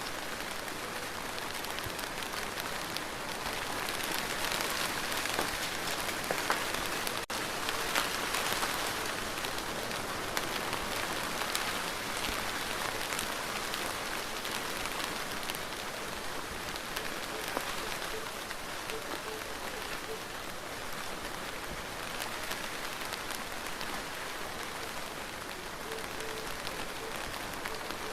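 Steady rain falling, an even hiss of water full of small individual drop impacts. There is a split-second dropout about seven seconds in.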